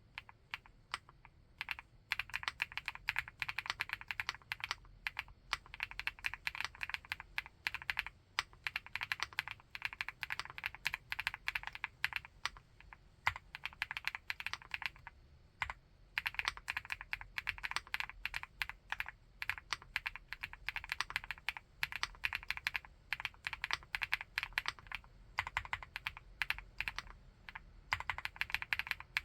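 Continuous fast typing on a 75%-layout keyboard with a full aluminium case: dense runs of key clicks broken by a few brief pauses.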